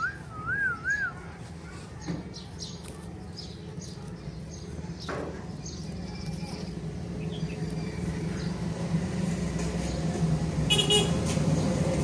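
A wavering whistle in the first second, then a motor vehicle engine hum that grows steadily louder, with a short high toot near the end.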